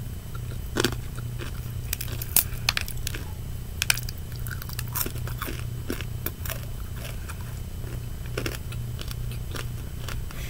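Close-up chewing and biting of crispy fried chicken: irregular crunches and mouth sounds, the sharpest ones in the first four seconds, over a steady low hum.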